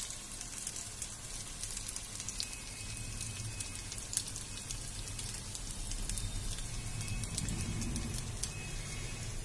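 Hot oil sizzling with fine, steady crackling around potato patties shallow-frying in a pan, over a low steady rumble.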